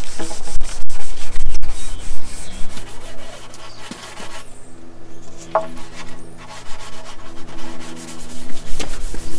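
Abrasive pad (Scotch cloth) scrubbing grey water-based wood stain into a pine plank, a rough rubbing sound loudest in the first three seconds, quieter through the middle and picking up again near the end.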